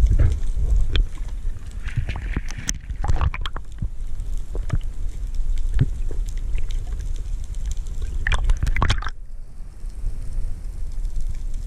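Underwater sound picked up through a GoPro's waterproof housing: a steady low rumble of water moving past the camera, with scattered sharp clicks and knocks. A cluster of clicks comes about eight seconds in, then it goes quieter.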